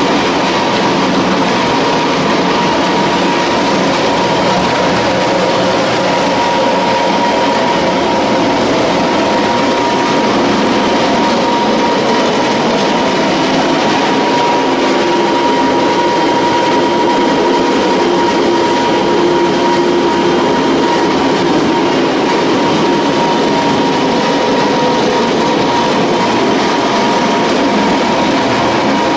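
Small animal feed pellet mill running steadily while pressing feed into pellets, a loud, even machine noise with a steady high hum through it.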